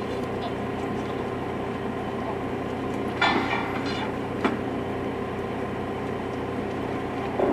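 Railway track maintenance motor car's engine idling steadily, with sharp metal clanks from track work about three seconds in, again a second later, and once more near the end.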